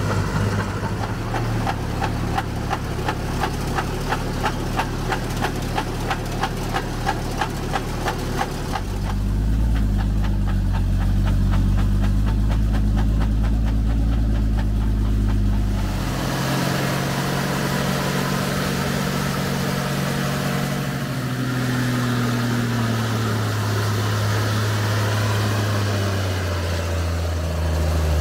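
Zil-164 truck's six-cylinder petrol engine running. For the first several seconds it carries a regular knock about three times a second. Then it is deeper and louder, heard from inside the cab, and near the end its pitch rises and falls as it revs.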